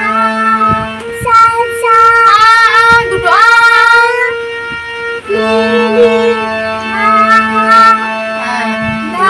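Children singing a melody with a woman's voice, over a steady held drone from a harmonium.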